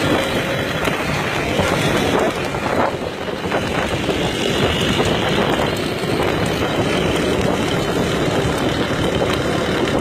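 Steady, loud rushing noise of wind buffeting the microphone over a running vehicle, with no clear rhythm.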